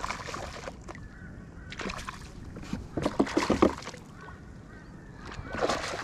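A hooked fish splashing and thrashing at the surface beside a kayak in four short bursts, the loudest about three seconds in.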